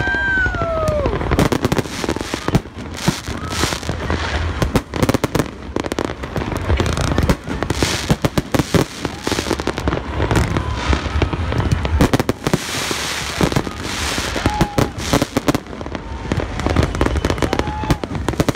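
Fireworks display going off in rapid succession: many overlapping bangs and crackling bursts.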